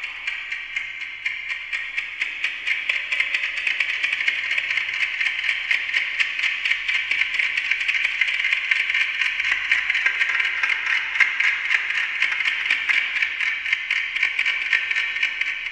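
Amplified ticking of a Westclox Silver Bell wind-up alarm clock, fed through voltage-controlled and fixed digital delays so that the ticks pile up into a fast, dense stream of clicks. It grows a little louder over the first few seconds.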